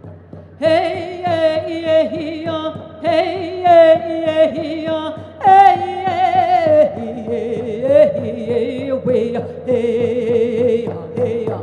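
A woman's solo voice singing a Navajo-language song, holding long notes with wavering vibrato in phrases. The melody drops to a lower held line about seven seconds in.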